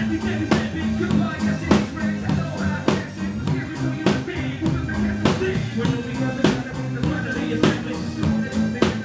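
Live rock and hip-hop band playing, heard close from on the stage behind the drums. The drum kit keeps a steady beat, with strong hits a little under twice a second, over a repeating bass line.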